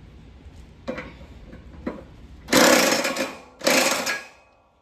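Electric impact wrench run in two short bursts, running a mower blade's nut down onto the spindle. A couple of light clicks come before it.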